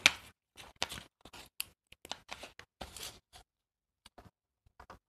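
Scissors cutting paper: a run of short, irregular crisp snips and paper rustles, thinning to a few faint clicks near the end.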